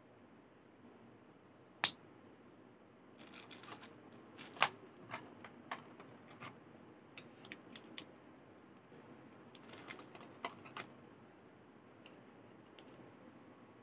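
Small metal clicks and taps of a stainless-steel folding camping utensil set being handled: the spoon, knife and fork pieces knock against and slot into the multi-tool handle. One sharp click near the start, then scattered clicks for a few seconds and another short cluster later.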